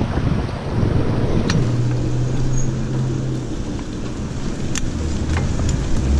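Wind rushing over the microphone of a cyclist's helmet camera while riding on a road, with a motor vehicle's engine running close by as a steady low tone. A few sharp clicks come through on top.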